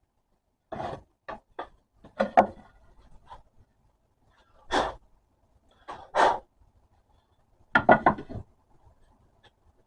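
Scattered knocks, clunks and short scrapes of a wooden workpiece and its clamps being handled and repositioned on the bench between router passes; the router is not running. A few quick knocks come early, two longer clunks follow in the middle, and a cluster of knocks comes near the end.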